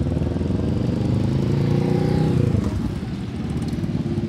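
A motorcycle engine riding past, growing louder to a peak about two and a half seconds in and then fading away.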